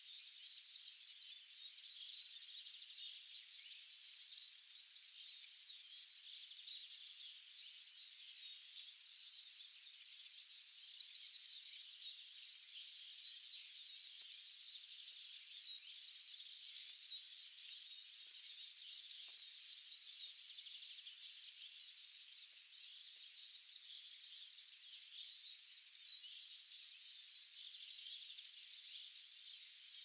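Faint, continuous chorus of many songbirds, a dense mass of high chirps with no single bird standing out.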